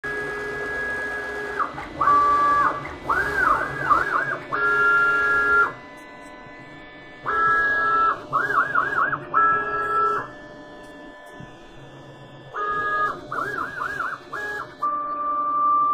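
Stepper motors of a PrintNC DIY CNC router whining as they move a pen plotter head. The pitch holds steady on straight moves and swoops up and down in quick arcs as the machine traces circles. There are three spells of movement with short pauses between them.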